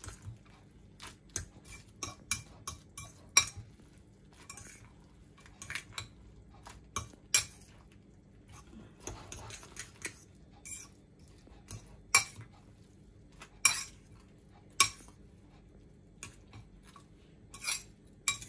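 Metal fork stirring instant noodles, raw egg and chopped vegetables in a bowl, clinking and scraping against the bowl in irregular strokes, a few of them sharper and louder.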